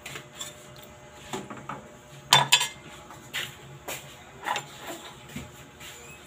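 A utensil clinking and knocking against a metal cooking pot of broth: a scattered series of sharp clinks, the loudest two close together about two and a half seconds in.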